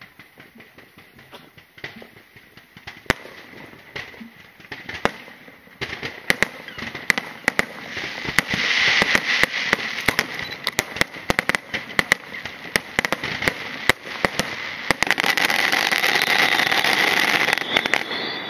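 Aerial fireworks going off: scattered bangs at first, then a fast, dense barrage of bangs over crackling, heaviest about halfway through and again near the end.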